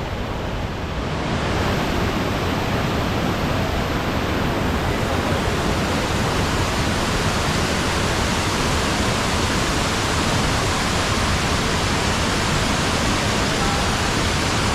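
Hulugan Falls' waterfall roar: a steady rush of falling water that grows louder and brighter about a second and a half in, then holds steady.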